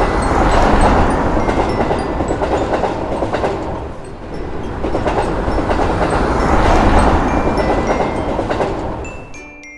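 Train passing a level crossing: a heavy rumble with clattering wheels over the rails. It swells twice, loudest about a second in and again around seven seconds in, and fades away near the end.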